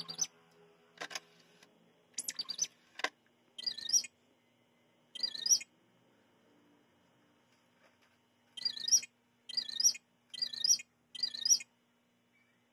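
Star Wars R2-D2 edition Xbox 360 console playing its built-in R2-D2 beeps and whistles: short warbling chirps, a few in the first six seconds, then four in quick succession from about nine seconds in, over a faint steady hum.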